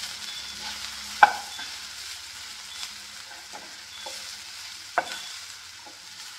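Sliced onions, garlic and ground spices sizzling in oil in a nonstick frying pan while a wooden spatula stirs them, scraping and knocking on the pan. The sharpest knocks come about a second in and again near five seconds.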